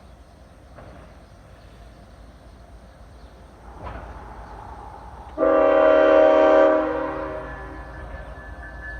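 Freight locomotive's air horn sounding one loud blast of several notes at once as the train nears a road crossing. It starts suddenly about five seconds in, is held for about a second and a half, then fades away over low train rumble.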